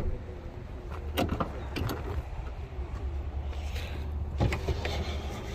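Door window of a 1971 Chevrolet Caprice sedan being rolled down, the glass moving in its channel under a low steady hum, with a few sharp clicks.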